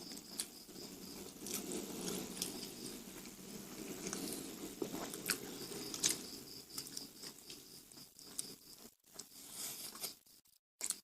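Close-up chewing of crisp deep-fried Indonesian snacks (gorengan), a soft steady mashing broken by sharp crunches every second or so, tapering off near the end.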